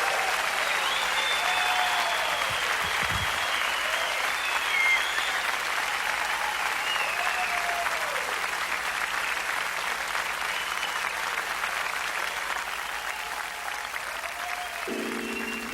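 Live concert audience applauding and cheering, with whistles. Music starts softly near the end.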